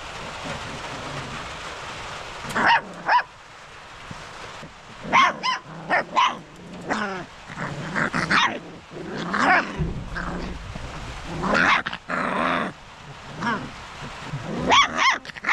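A litter of livestock-guardian puppies whining and yelping, with about a dozen short, high calls scattered over the seconds, some bending up or down in pitch.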